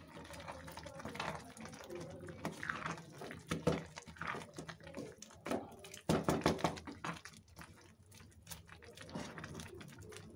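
A spatula stirring thick grated carrots simmering in milk in a steel kadai: irregular wet squelching and sloshing, louder in a few short strokes.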